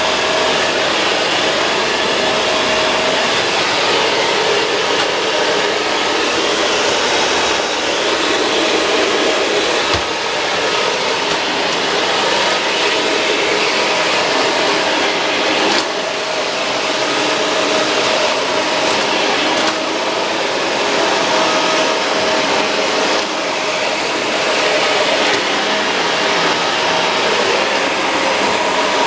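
Shark Rotator Pro Lift-Away NV500 vacuum cleaner running steadily, with a few brief knocks along the way.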